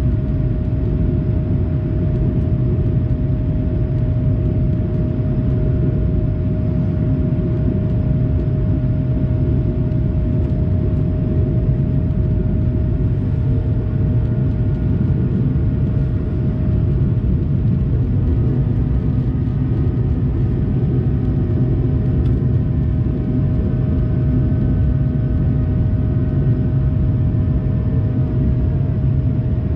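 Airbus A220-300 cabin noise in flight: the steady, heavy low noise of its Pratt & Whitney PW1500G geared turbofans and the airflow over the fuselage, with a constant hum tone on top.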